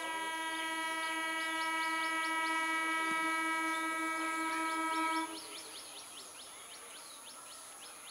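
Electric multiple unit (EMU) local train sounding its horn as it approaches: one long steady blast of about five seconds that cuts off suddenly. Faint chirping runs behind it.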